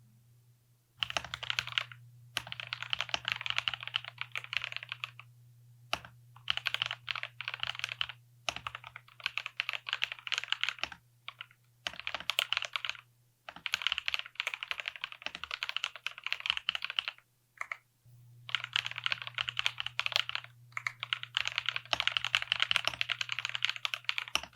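Fast typing on a mechanical keyboard fitted with dalgona keycaps, in runs of rapid key clicks a second or three long with short pauses between.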